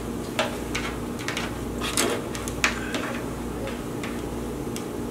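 Bamboo serving spoon scooping diced chicken off a tray into a tortilla: a string of small, irregular clicks and taps over a steady low hum.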